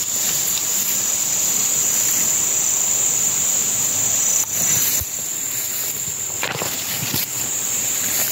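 Insects droning steadily in one continuous high-pitched buzz, with a few brief rustles or footsteps in the undergrowth from about halfway through.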